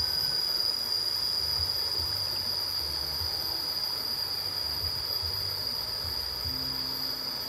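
Insects, crickets or similar, calling in a steady, unbroken high-pitched drone, with an uneven low rumble underneath.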